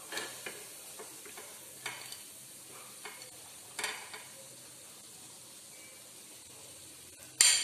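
Hot oil sizzling faintly in a non-stick kadai while a steel spoon scrapes and taps against the pan, lifting out shallow-fried paneer cubes. A few sharp clicks of metal on the pan, and near the end one much louder clatter.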